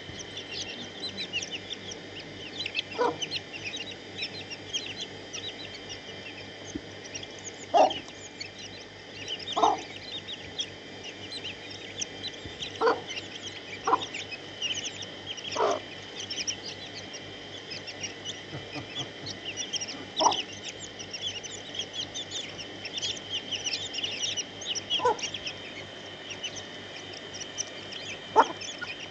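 A brood of chicks peeping continuously in short, high cheeps. A mother hen clucks now and then among them, about nine single low clucks spread across the stretch.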